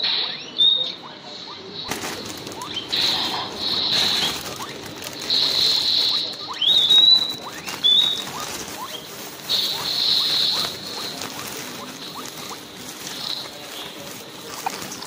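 Guinea pigs wheeking: loud, high squealing calls, some sweeping upward, repeated every second or two and growing sparser toward the end, over a steady rustling. Wheeking is the call guinea pigs give in excited anticipation of food, here as fresh hay goes into the cage.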